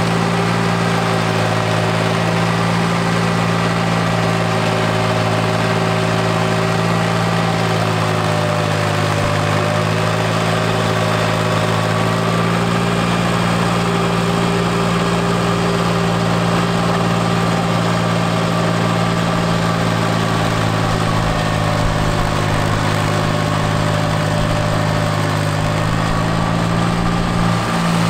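Yanmar FX175 compact tractor's diesel engine running steadily at a constant speed, with a slight waver in pitch.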